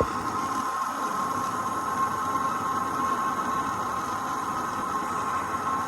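Hose-fed self-lighting propane torch burning steadily: a constant hiss of the flame with a steady tone running through it, as it heats flux-coated stainless steel tubing for brazing.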